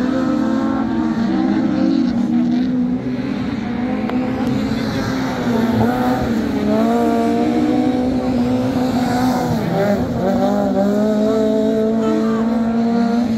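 Rallycross race car engines revving hard through a hairpin, the engine note climbing and dropping as the drivers lift, brake and accelerate out of the corner. The note sags briefly about ten seconds in, then climbs again.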